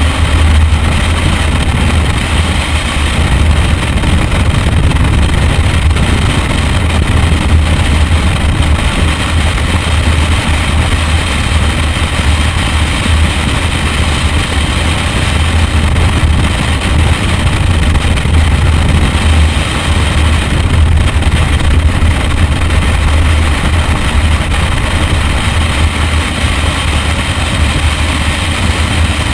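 Wind buffeting the outside-mounted camera of a BMW 1M Coupe at track speed, a steady low rumble, with the car's twin-turbo straight-six running under it.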